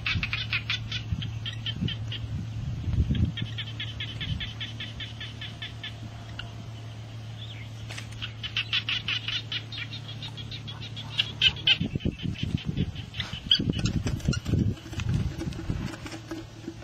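Rapid chattering animal calls in repeated runs of a second or two, over a steady low hum. From about twelve seconds in, irregular thumps and rustling of handling in the grass and soil.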